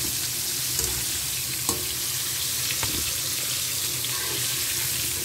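Flour-coated shrimp deep-frying in hot oil in a wok: a steady sizzling hiss, with a couple of brief sharp clicks.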